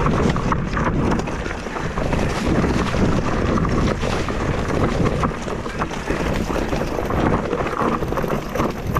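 Wind rushing over the microphone during a fast mountain-bike descent, with tyres crunching over loose rock and the bike's chain and frame rattling. Small knocks come through constantly as the wheels strike stones.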